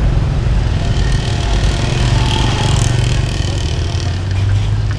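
Street traffic noise: a steady low rumble of vehicle engines, with a deeper engine hum growing louder near the end.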